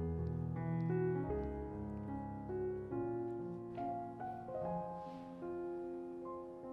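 Background piano music playing slow, sustained notes and chords.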